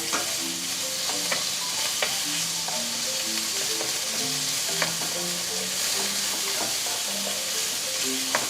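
Diced chicken sizzling steadily in hot oil in a pan as it is stir-fried. A spatula clicks against the pan a few times.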